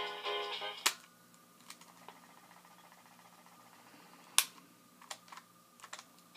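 Pitched music breaks off a little under a second in, followed by quiet room tone with a few scattered sharp clicks, the loudest about four and a half seconds in.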